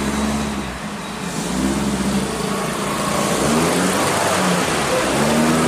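Mazda MX-5 engine running, its pitch rising and falling a few times as it is revved lightly.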